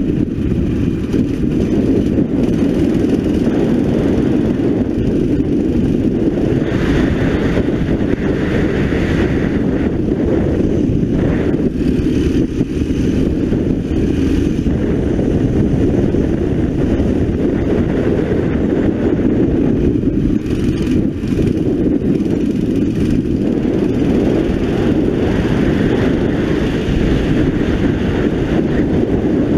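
A 9 hp four-stroke kart engine running hard on the track, its note rising and falling as the kart accelerates along the straights and slows for the corners.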